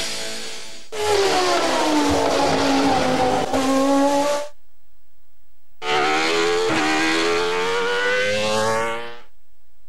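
Two short, abruptly cut bursts of a Formula One car's V10 engine at high revs: in the first the pitch falls and then levels off, in the second it climbs steadily. Music fades out in the first second.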